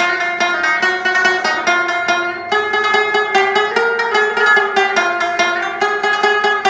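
End-screen background music: a quick run of plucked string notes with a steady beat.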